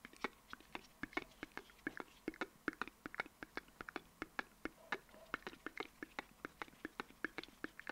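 Close-miked ASMR mouth sounds: a quick run of wet mouth clicks and pops, about four or five a second.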